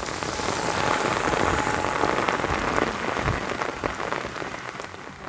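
Heavy rain falling on a paved road and puddles: a steady, even hiss that fades in over the first second.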